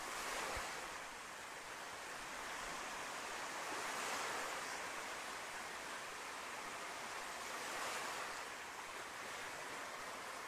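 Ocean surf: waves breaking and washing up a sandy beach, a steady hiss that swells and eases about every four seconds.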